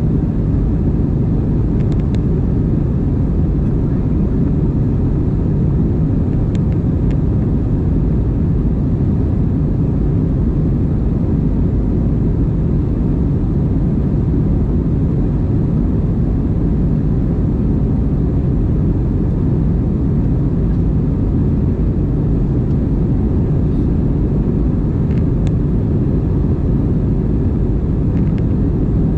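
Airbus A320-232 climbing after takeoff, heard from inside the cabin: engines and airflow make a steady, even low rumble. A few faint clicks are scattered through it.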